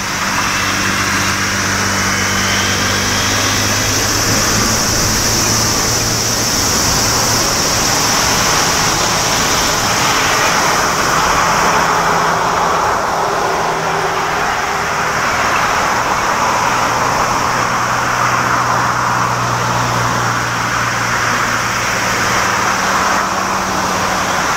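Boeing 777 freighter's twin turbofan engines at low taxi power as the jet rolls past, a steady jet noise that grows a little fuller around the middle as it comes closest.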